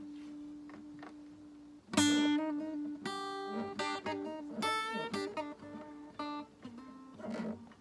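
Acoustic guitar played solo: a single note rings on for the first two seconds, then a loud struck chord about two seconds in starts a loose run of picked notes and chords, each left to ring.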